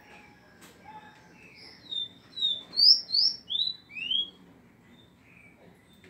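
Small caged songbird singing a quick phrase of about eight high, short chirps and slurred whistles, some rising and some falling, between about two and four and a half seconds in, with a few softer notes before and after.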